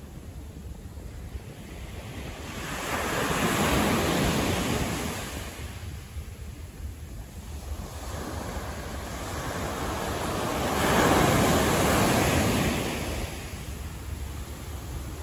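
City street background noise with two vehicles passing by, one about three seconds in and one about ten seconds in; each rises and fades over a couple of seconds.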